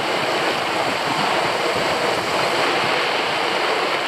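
Heavy rain pouring onto the lake surface and the canoe: a dense, steady hiss of a thunderstorm downpour.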